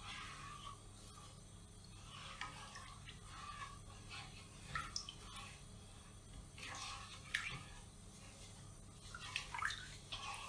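Faint kitchen liquid sounds: small irregular splashes and drips with a few sharp ticks, at an uneven pace.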